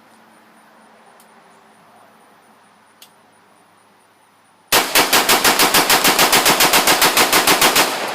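A 30-round magazine dumped in rapid fire: a fast, even string of shots at about eight or nine a second for about three seconds, starting a little over halfway through. It stops abruptly as the magazine runs dry, and an echo trails off after it.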